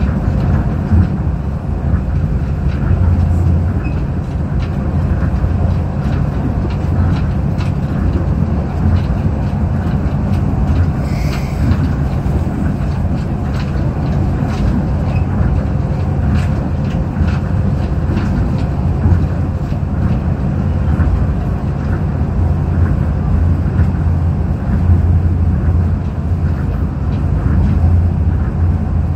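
Tokyo Monorail car running at speed, heard from inside the cabin: a steady low rumble from its running gear along the beam, with faint scattered clicks and rattles.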